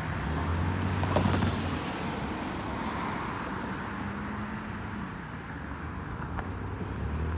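Road traffic: motor vehicles running and passing, a steady rush of noise with a low engine hum that is stronger in the first couple of seconds and again near the end.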